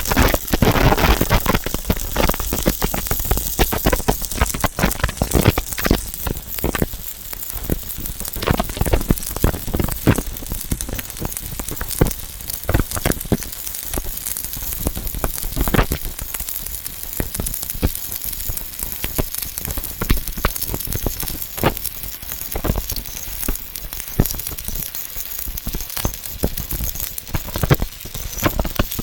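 Stick (arc) welding: the electrode's arc crackles steadily with many irregular sharp pops while a root pass is run.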